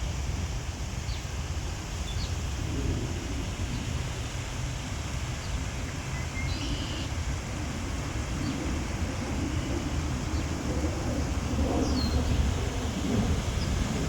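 Wind buffeting the microphone as a steady low rumble that grows stronger near the end, with a few short, faint bird chirps over it.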